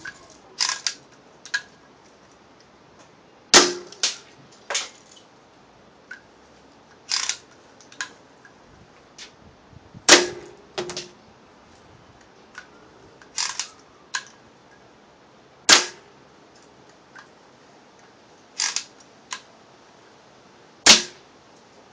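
Daisy Buck 105 lever-action BB gun being fired repeatedly: four loud, sharp shots about five to six seconds apart, with quieter clicks in between.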